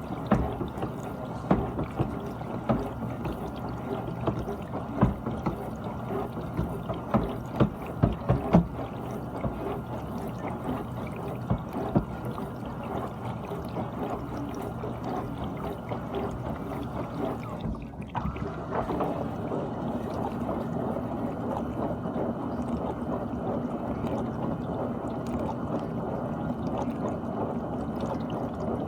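GE dishwasher washing: water spraying and sloshing inside the tub, with irregular splashes and knocks for the first dozen seconds. The sound briefly drops away about eighteen seconds in, then runs on more steadily.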